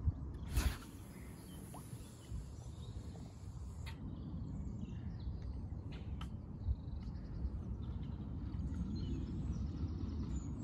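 A carp rod being cast: a sharp whoosh about half a second in, then the line hissing off the reel spool for about three seconds and ending in a click, with a couple of smaller clicks later. Birds chirp around it over a steady low rumble.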